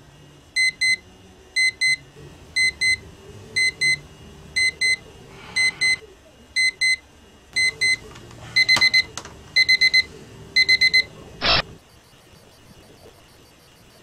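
Digital alarm clock beeping in pairs about once a second, switching to quicker groups of four beeps about eight and a half seconds in. It stops after about eleven seconds, and a single short knock follows.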